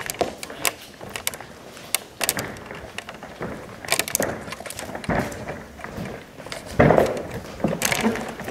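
Scattered knocks, thumps and rustles, with the loudest thump about seven seconds in.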